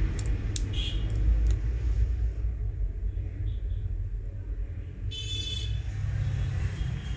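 Steady low background rumble, with a few light clicks in the first second or so and a brief high-pitched beep about five seconds in.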